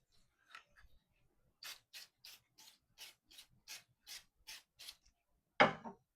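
About ten rhythmic hand strokes of an abrasive tool rasping along a holster's edge, roughly three a second, cleaning it up, followed near the end by one louder knock.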